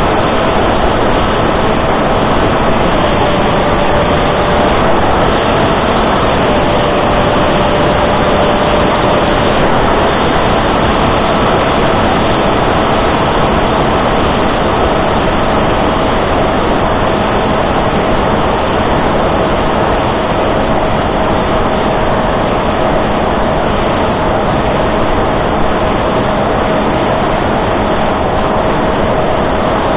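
Reptile S800 flying wing's electric motor and propeller, recorded by the camera on board: a steady propeller whine over loud wind rush. The whine sags a little in pitch for a few seconds near the start, then holds level.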